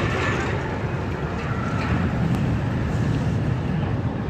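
Runaway Mine Train, a steel mine-train roller coaster, rumbling along its track on an empty test run.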